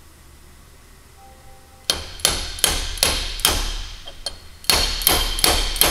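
Hammer taps driving a heated carrier bearing down onto a Salisbury differential carrier: sharp metallic strikes with a brief ring. They start about two seconds in, a run of about five, a short pause, then four more at two or three a second.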